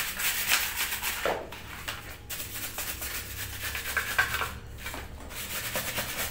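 Scrubbing by hand on a wet plastic washing-machine part, irregular rubbing strokes, with a few light knocks as the part is handled.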